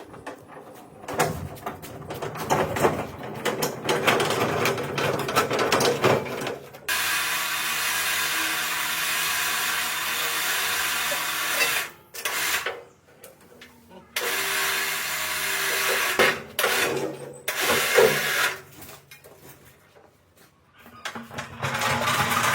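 Workshop tool noise in a series of short cuts: a power tool runs steadily for about five seconds in the middle, with shorter runs, knocks and clatter of metal work around it.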